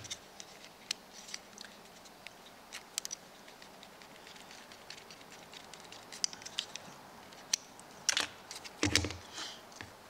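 Faint plastic clicks and handling noise as a washing-machine shift actuator and the wires of a test cord are worked by hand, with a couple of louder knocks near the end.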